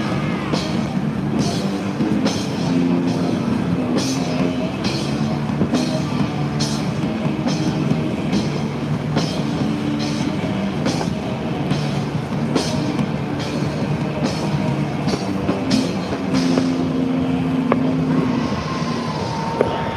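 Rock music with a steady drum beat and a driving bass line.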